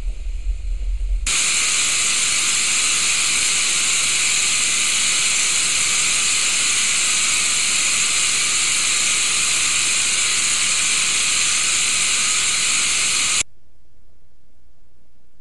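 Loud steady hiss of television static. It starts about a second in after a low rumble and cuts off suddenly near the end, leaving only a faint low hum.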